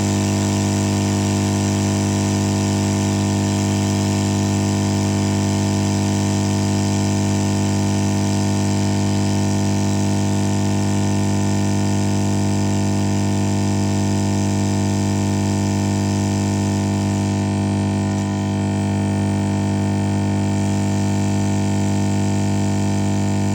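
Hot air rework gun's blower running with a steady hum, heating a new charging jack onto a phone's charging board to melt the solder.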